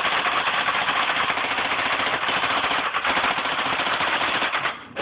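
BB rifle firing in one long, rapid, unbroken burst, a fast stream of shots that stops shortly before the end.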